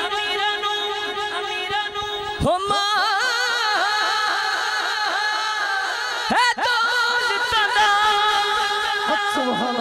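A man singing a Punjabi naat into a microphone over a PA system, unaccompanied by words for the listener to catch: long held, melismatic notes with a wavering pitch. One note is held for the first couple of seconds, then a new phrase sweeps up about two and a half seconds in, and another break and rise comes past the middle.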